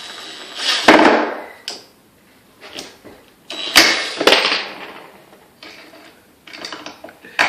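DeWalt 20 V cordless impact driver run in two short bursts, hammering on a screw that won't drive home because the stud it goes into is loose. There are sharp knocks about a second in and again near four seconds, with fainter clatter afterwards.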